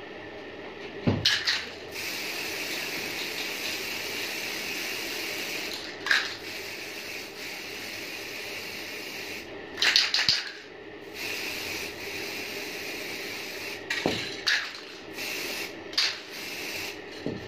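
Aerosol spray-paint can hissing in long steady bursts as a coat of black paint goes on, with a few short clicks and knocks between the bursts.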